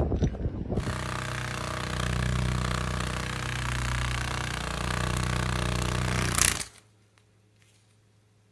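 Hercules beetle buzzing its wings with the wing cases raised: a loud, steady, low drone that stops suddenly.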